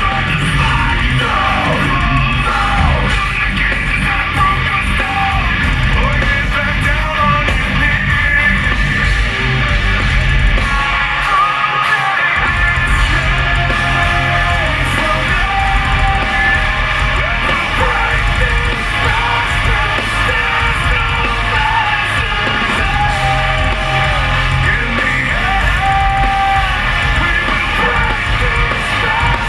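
Heavy metal band playing live, a singer shouting and singing over loud guitars and a heavy low end. The bass drops out for about a second around eleven seconds in.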